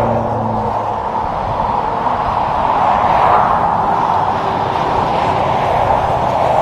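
Blue Freightliner Cascadia semi-truck driving past on a highway: a steady rush of tyre and road noise with a low diesel engine hum that fades out about a second in, swelling slightly around the middle.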